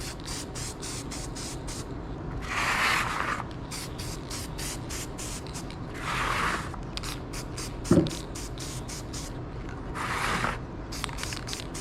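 Aerosol spray paint can spraying bolts in three hissing bursts of about a second each, with quick faint clicking between them and a single knock near the middle.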